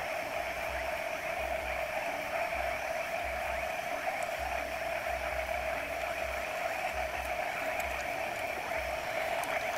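Steady night-time background noise at the water's edge: an even, continuous hiss and hum with no distinct events, with faint, uneven low rumbles on the microphone.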